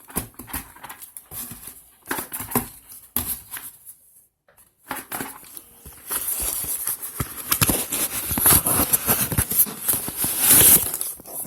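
A box and its packaging being handled and unpacked: scattered knocks and clicks at first, then denser rustling and crackling from about six seconds in.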